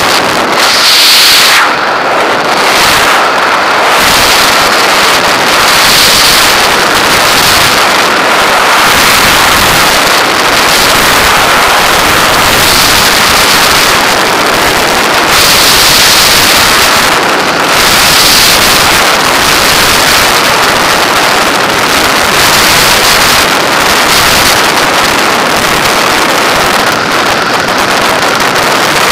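Loud, steady rush of freefall wind over a camera's microphone, with uneven surges, setting in suddenly at the start as the skydivers leave the aircraft.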